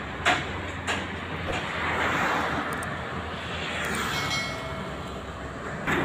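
Roadside traffic noise: a passing vehicle makes a rushing sound that swells about two seconds in and then fades.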